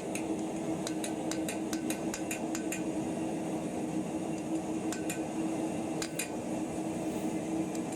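Light, irregular metallic taps of a blacksmith's hammer on a small iron bar on the anvil, drawing a point on the end. They are densest in the first three seconds, with a few more later, over a steady hum.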